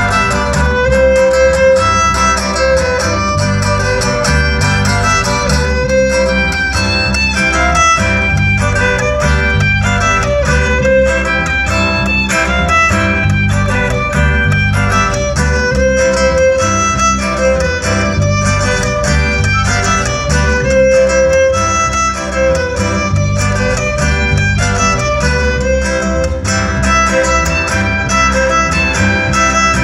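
A traditional Mixe son played by a string trio. The violin carries a lively melody over acoustic guitar and a steady plucked bass line.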